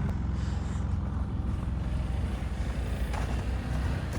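Engine of a snow-plowing vehicle running steadily at a low, even pitch.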